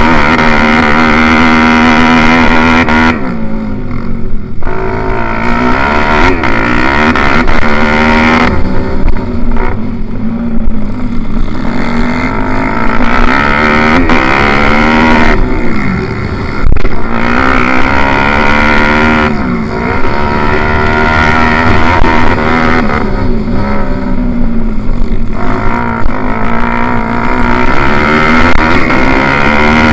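A pit bike's small single-cylinder four-stroke engine running hard at race pace, loud and close. Its pitch climbs through each gear and drops at every shift or throttle cut, several times over.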